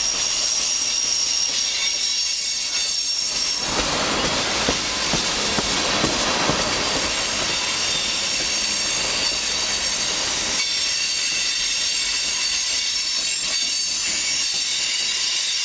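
Freight cars rolling past at close range, steel wheels on rail with a steady high-pitched squeal from the wheels. A stretch of rattling and clacking runs from about four to ten seconds in.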